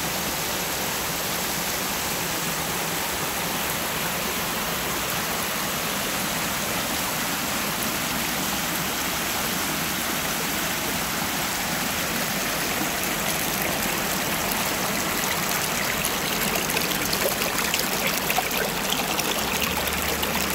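Water running and splashing down a shallow stepped cascade over layered rock ledges, a steady rushing hiss that grows louder and splashier near the end.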